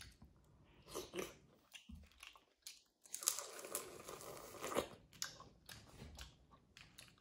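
Close-up eating of boiled crawfish: crunching and chewing on the shell-on pieces, with a few clicks about a second in and a denser run of crackling and chewing from about three to five seconds in.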